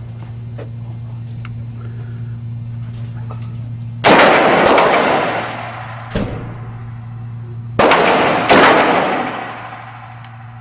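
Five single gunshots, unevenly spaced: two close together about four seconds in, a weaker one near six seconds, and two more around eight seconds. Each shot trails off in a long echo, over a steady low hum.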